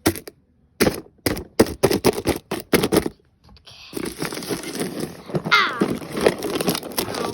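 Sticky tape being handled: a quick run of sharp crackles, then a longer stretch of continuous rasping as tape is pulled, with a brief squeal partway through. Paper packaging crinkles along with it.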